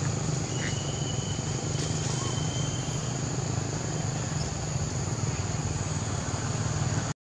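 Insects droning in a high, steady, unbroken tone over a low steady hum. The sound cuts out abruptly right at the end.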